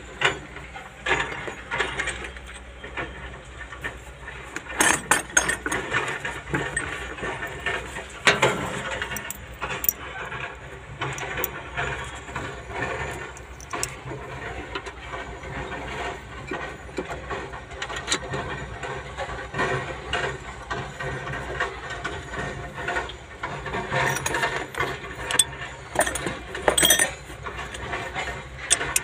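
Irregular metallic clinks and clicks of hand tools and bolts as the timing-cover bolts on an excavator's diesel engine are fitted and tightened with a ratchet wrench, over a steady low hum.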